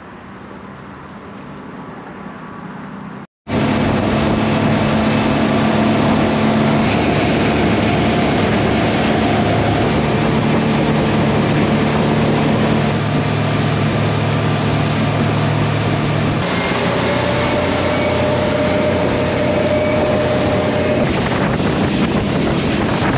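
A few seconds of quiet dockside ambience, then a sudden cut to a fishing boat running at speed on open water: a steady engine drone under loud wind buffeting and rushing hull spray. The drone's pitch shifts slightly about two-thirds of the way through.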